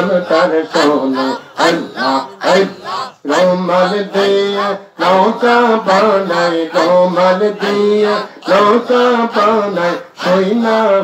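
A man singing a Bengali Islamic devotional song into a microphone, in long held phrases with short breaths between them and no instrument behind.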